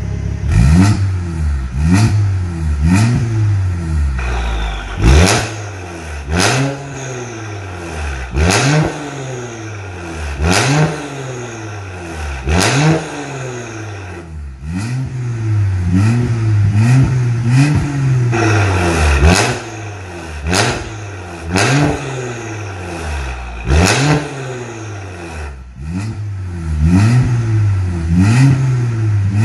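Mercedes-Benz E400's twin-turbo V6 being blipped repeatedly through an aftermarket stainless valved exhaust: about a dozen quick revs, each rising sharply and falling back to idle, with the engine idling between them. Heard with the exhaust valve open (racing mode), then with it closed (standard mode) after a short break near the end.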